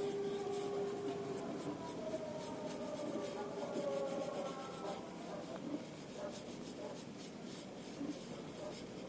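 Soft rubbing and scratching strokes on a surface. Through the first few seconds a faint whine slowly falls in pitch and dies away.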